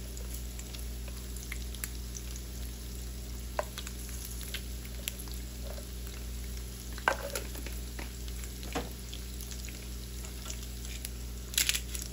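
Diced Vienna sausages frying in oil in a nonstick pan: a steady faint sizzle with scattered pops and crackles. A few sharper clicks stand out, bunched near the end.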